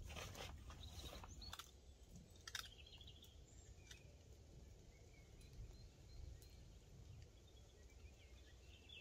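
Near silence: faint woodland ambience with a low, even rumble, a few small clicks and knocks in the first couple of seconds, and brief high bird chirps about three seconds in and again near the end.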